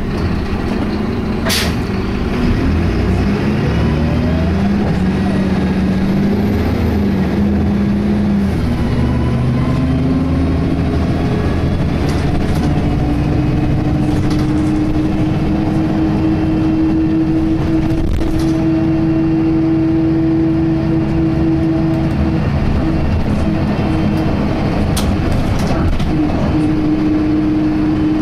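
Inside an Optare Tempo single-deck bus on the move: its diesel engine and Allison automatic gearbox give a strange whining tone that steps and rises through the gear changes and then holds steady. The uploader likens it to a Voith gearbox, although this bus has an Allison. There is a sharp hiss or clunk about a second and a half in, and another near the end.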